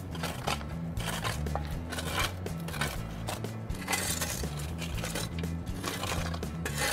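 Steel shovels scraping and scooping loose dirt and broken asphalt out of a pothole, in irregular short strokes, over background music with a steady bass line.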